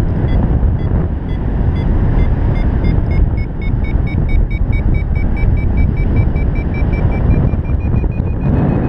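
Wind buffeting the microphone in flight, with a paraglider's variometer beeping over it; the beeps quicken and rise in pitch until they nearly run together into one climbing tone near the end, the vario's signal of increasingly strong lift.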